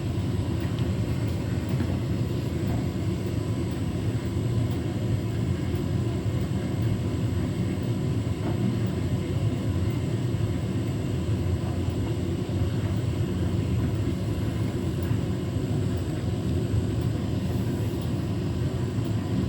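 Beko WTK104121W washing machine's drum rumbling steadily as it turns a load of flannelette bedding, trying to distribute it before a spin. The load is unbalanced, so the machine holds off spinning.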